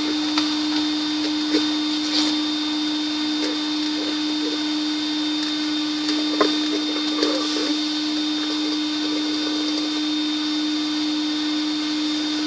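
A steady electrical buzz holding one low pitch, which the people present place in a panel. A fainter high whine and hiss run under it, with a few light knocks.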